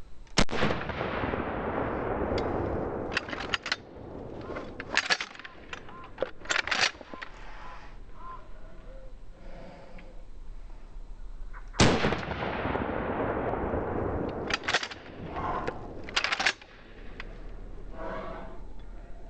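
Two pump-action shotgun shots about eleven seconds apart, each trailing off over a few seconds, then a run of sharp metallic clacks as the pump action is worked one-handed to chamber the next shell.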